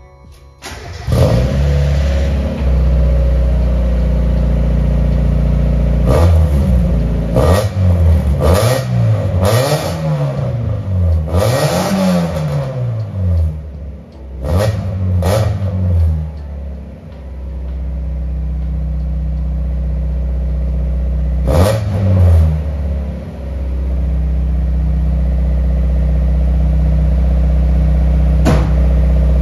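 Mazda Miata four-cylinder engine starting about a second in and idling, then revved in a string of quick rising-and-falling blips before settling back to idle, with one more blip later on. It is the first start with a freshly welded-in high-flow universal catalytic converter, run up to hear the new exhaust note and check for leaks.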